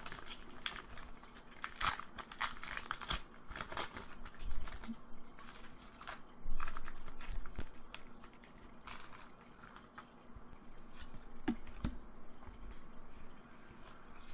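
Foil Pokémon trading card booster pack wrapper crinkling irregularly as it is handled and torn open, loudest about six and a half seconds in.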